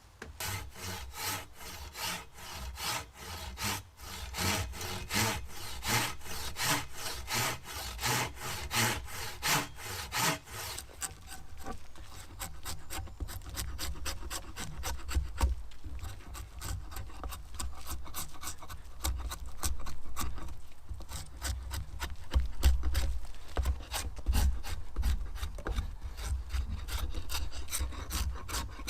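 Hand saw cutting through a length of wood in steady back-and-forth strokes, slower and stronger for about the first ten seconds, then quicker and lighter.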